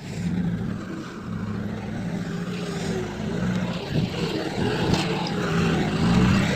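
Heavy diesel engine of construction machinery running steadily under load, with a wavering higher tone over its low drone and a single knock about four seconds in.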